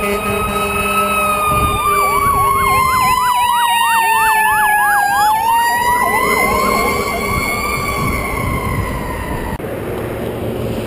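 Fire truck sirens passing at close range: a wail slowly winding down and back up while a fast yelp warbles over it, fading out near the end.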